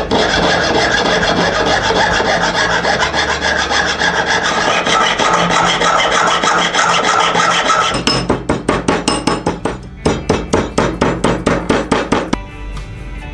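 Hand file rasping on silver, fast dense strokes at first, then from about 8 seconds in separate back-and-forth strokes at about four a second, stopping about a second before the end.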